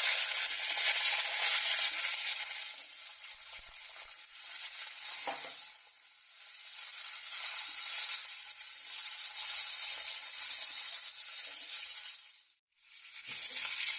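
Whole lovi-lovi (scramberry) fruits sizzling in hot oil with fenugreek and curry leaves, just added to the pan. The hiss is loudest at first, dies down for a few seconds, swells again and then cuts off suddenly near the end, with a single soft knock about five seconds in.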